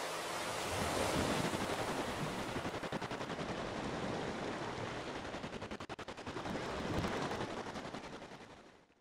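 Crackling fire sound effect: a steady rushing hiss dense with sharp crackles and pops, fading out near the end.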